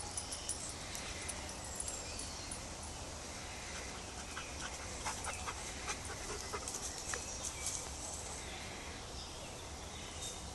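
Dogs panting and sniffing, with a scatter of short rustles and clicks.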